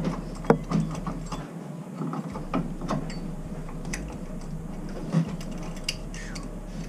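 A wrench working a threaded pipe fitting in a tight space: irregular metal clicks and scrapes as the tool is shifted and turned, over a low steady hum.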